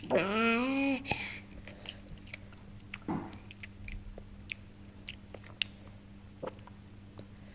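A toddler's voice: one long vocal sound rising in pitch for about a second, with his mouth full of food, then a short grunt about three seconds in. After that, quiet chewing and small wet mouth clicks as he eats crumbly food with his fingers.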